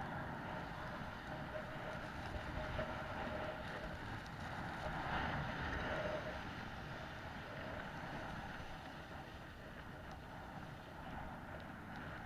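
Snowboard sliding and scraping over groomed snow during a run, with wind buffeting the action camera's microphone; the scraping swells a little about halfway through.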